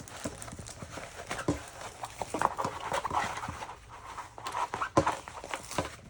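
A diamond painting canvas being handled and rolled: irregular rustling and crinkling with small clicks, in two busier spells in the second half.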